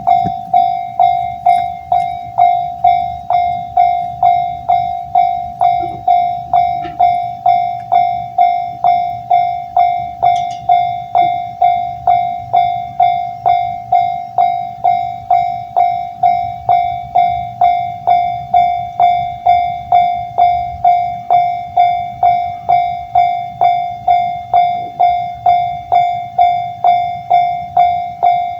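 Railway level crossing warning bell ringing: one bell-like tone struck about twice a second, each ding fading before the next, repeating steadily without a break.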